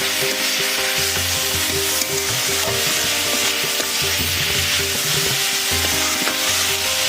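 Fiddlehead ferns and egg sizzling steadily in a frying pan while being stirred.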